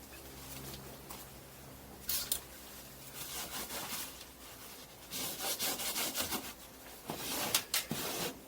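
A cloth rubbing in repeated strokes over the bed-liner-coated camper surface, wiping off a white film that has formed on the paint.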